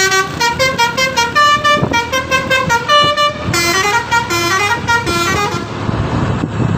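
A bus telolet horn playing a quick stepping melody of short, loud multi-tone notes. The tune stops near the end, leaving the bus's engine and road noise.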